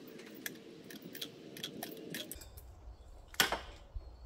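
Light metallic clicking and clinking of a copper brake pipe and small hand tools being handled, with one sharper click about three and a half seconds in.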